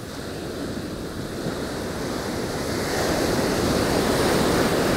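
Heavy ocean surf breaking and washing up the beach. It builds louder through the first half and peaks in the second half as a wave comes in.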